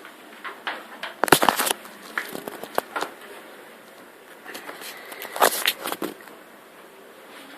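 Bosch SMS69M58EU dishwasher mid-cycle on its Turbospeed programme: water from the spray arms spattering against the dishes and door in irregular splashes over a steady background running noise, with the heaviest bursts about a second in and again just past the middle.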